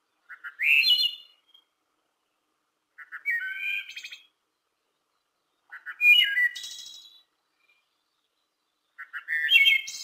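Male red-winged blackbird singing its conk-la-ree song four times, about every three seconds. Each phrase lasts about a second and opens with a few quick short notes before ending in a trill.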